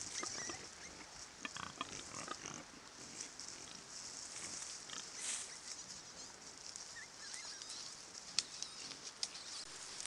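Wild boar and striped piglets rooting through dry leaf litter: leaves rustling with short pig grunts and squeaks, busiest in the first few seconds, and a couple of sharp clicks near the end.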